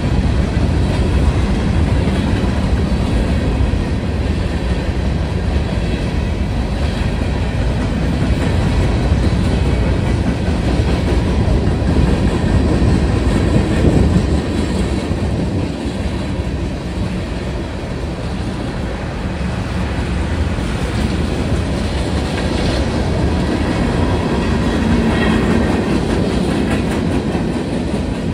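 Freight cars of a mixed freight train rolling past over a grade crossing: a steady, loud rumble with the clickety-clack of wheels over the rails.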